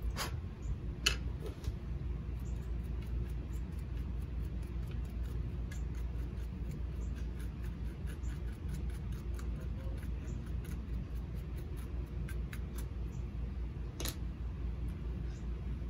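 Grooming scissors snipping while cutting a dog's coat: a run of small clicks with a few louder, sharper snips near the start and near the end, over a steady low hum.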